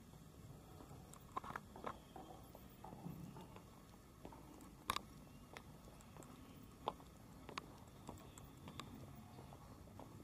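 Faint outdoor background with irregular light taps about once a second, footsteps on a concrete path, and one sharper click about halfway through.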